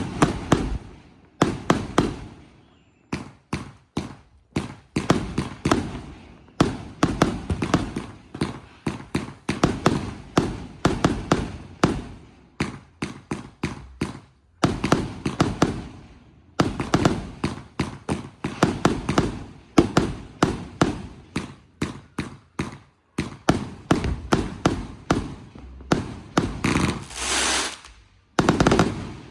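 Consumer multi-shot firework cakes firing in rapid volleys of sharp bangs, with brief pauses between volleys. Near the end there is a denser burst about a second long.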